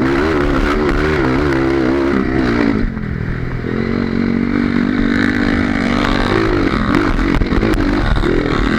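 Honda CRF230 trail motorcycle's single-cylinder four-stroke engine running under throttle, the revs rising and falling. The engine note drops about three seconds in, holds steady for a few seconds, then goes up and down again near the end.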